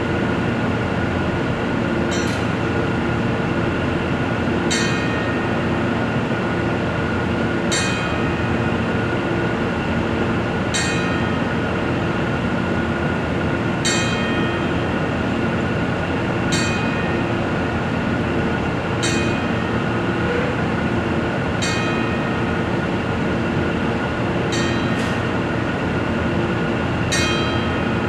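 Wrestling ring bell struck ten times, one strike every two and a half to three seconds, each leaving a short ring: a ten-bell salute. A steady hum runs underneath.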